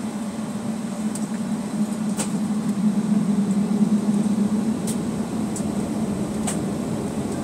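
Steady cabin hum inside a Boeing 757-200 taxiing, the engines at low taxi power together with the cabin air, with a low droning band throughout. A handful of short, sharp clicks sound over it.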